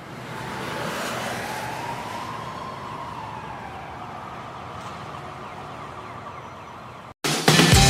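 A siren wailing, one slow rise and fall in pitch, over a steady rushing noise like street ambience. The noise cuts off near the end and rock music with drums and guitar comes in.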